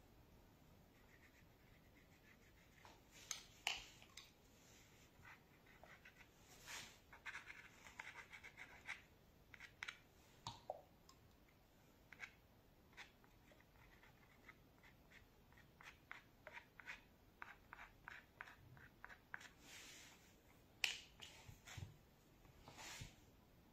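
Quiet handling sounds: scattered faint clicks and taps of small acrylic ink bottles and caps, with a few short bouts of light scratching from a brush on paper.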